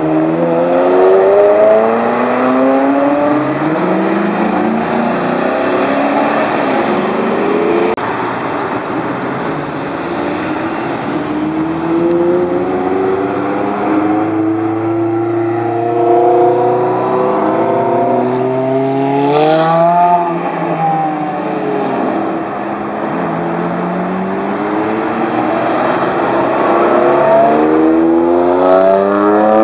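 Ferrari sports cars, among them 360 Modenas with their V8s, accelerating hard one after another, each engine revving up with rising pitch and dropping back at every gear change. About two-thirds of the way through, one car passes close, its pitch rising and then falling as it goes by.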